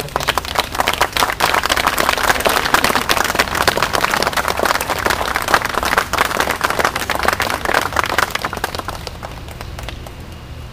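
Crowd applauding: many people clapping together. It starts suddenly and fades away about nine to ten seconds in.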